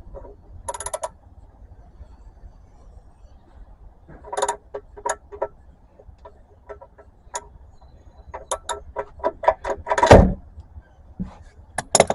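Metal hand tools clicking and clinking as the oil drain plug is put back in and tightened, including a run of quick ratchet-like clicks, with a heavier knock about ten seconds in.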